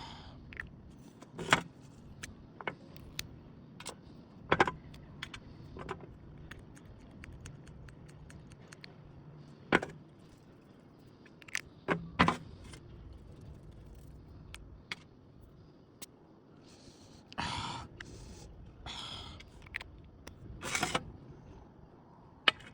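Objects and packaging being handled: scattered sharp clicks and knocks, with a few short bursts of rustling near the end.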